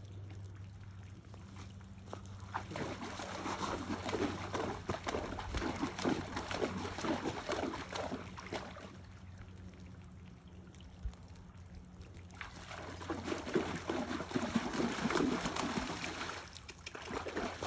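Miniature horse pawing at shallow pond water with a front hoof, splashing and sloshing in two long bouts with a quieter pause between them.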